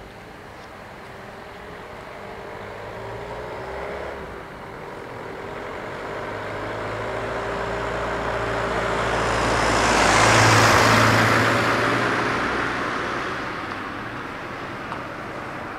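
A road vehicle driving past out of sight, its engine and tyre noise swelling to a peak about ten seconds in, then fading away.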